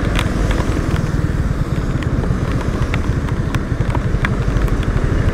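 Yamaha R15 V3's single-cylinder engine running as the motorcycle rides along, with tyre hiss on the wet road and a few scattered sharp ticks.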